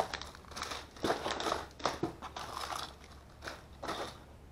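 Foil and plastic candy bags crinkling and rustling in irregular bursts as they are handled and packed into a cardboard box.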